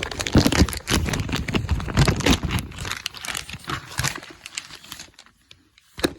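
Rustling, crinkling and clicking handling noises as the dirt bike's air filter and airbox parts are got out to be shown, dying down near the end.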